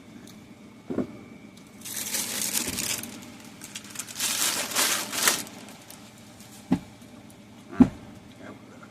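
Wrapping crinkling in two bursts of a second or so each, with several short thumps of things being handled and set down; the last thump, near the end, is the loudest.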